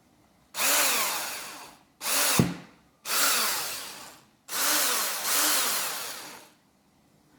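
DEKO GCD20DU3 20V cordless drill motor run in four short bursts, each spinning up and winding down, with a sharp click in the second burst. It is running again after a repair for power failure.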